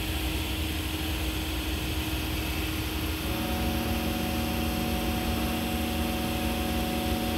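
Senboku 5000 series electric train standing at the platform, its onboard equipment giving a steady hum over a low rumble. A second set of steady tones joins about three seconds in.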